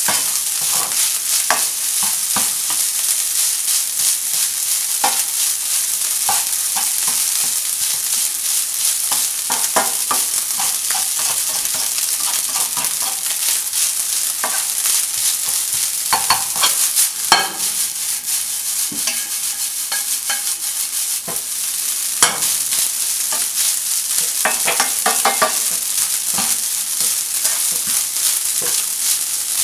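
Egg fried rice sizzling in a nonstick frying pan while a spatula stirs and turns it, scraping and tapping against the pan. A steady sizzle runs under the scrapes, which come in louder flurries about halfway through and again a little later.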